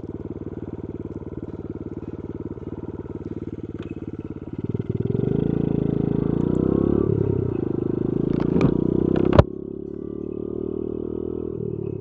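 Honda Monkey Z50J's small single-cylinder four-stroke engine running as the bike is ridden. About five seconds in it gets louder and its note shifts. A sharp knock comes at about nine and a half seconds, and then it settles back to a quieter, steady note.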